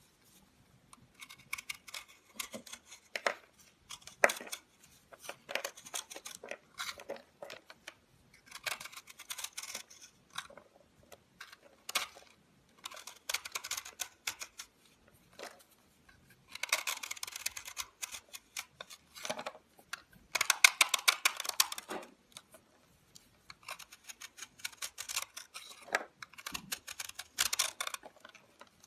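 A utility knife's snap-off blade carving into a dry, hard block of soap, crunching as chunks and crumbs break away. The crisp crackling comes in short runs of a second or two, one per stroke, with brief pauses between.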